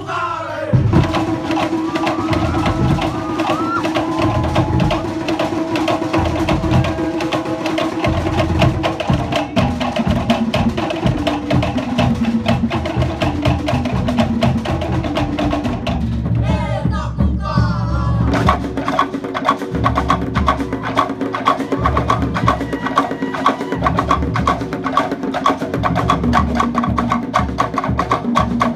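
Cook Islands drum ensemble: wooden slit log drums beaten fast with sticks in a dense, driving rhythm over the deep beats of large skin drums. The drumming breaks briefly about 16 seconds in, then starts again.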